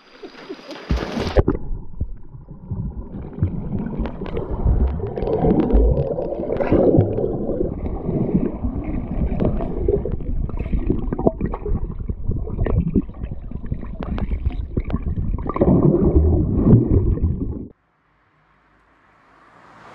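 Water gurgling and bubbling as heard by a microphone underwater: a muffled, churning rush full of small knocks and clicks. It cuts off suddenly near the end.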